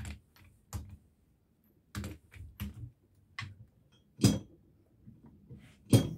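Torque wrench ratcheting on the clutch centre nut of a Triumph T140 Bonneville as the nut is run down: irregular sharp clicks, single or in twos and threes, with two louder clicks about four and six seconds in.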